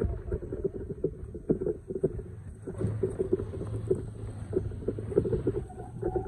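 Toyota FJ Cruiser's 4.0-litre V6 running steadily at low revs while rock crawling, with irregular knocks on top.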